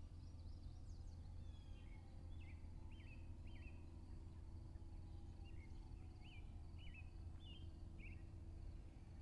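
Faint outdoor ambience: a bird gives a series of short, quick chirps over a steady low rumble.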